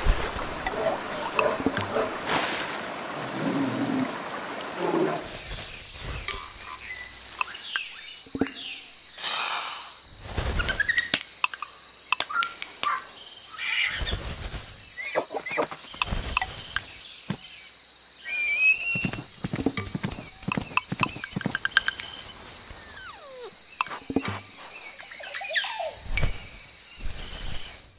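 Tissue paper rustling and crinkling as it is handled, with many soft taps and clicks and a few short chirping calls, added as sound effects for stop-motion tissue animals.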